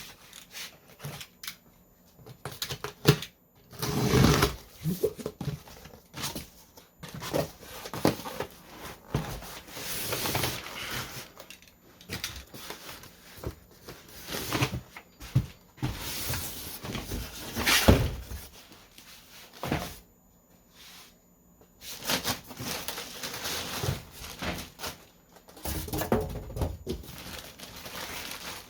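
Irregular clicks, knocks and rustling from hands handling computer parts and packaging during a PC assembly, with a few sharper knocks and a short quiet spell about two-thirds of the way through.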